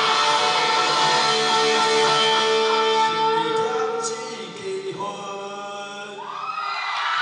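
Live rock band holding a final chord on electric guitar and bass through stage amplifiers, ringing out steadily and then dying away after about four seconds. Voices rise near the end as the song finishes.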